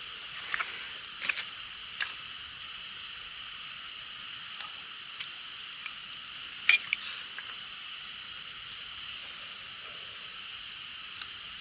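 Night insects, crickets among them, chirping in short pulses that repeat a few times a second over a steady high insect drone. A few faint clicks sound over them, the sharpest about two-thirds of the way through.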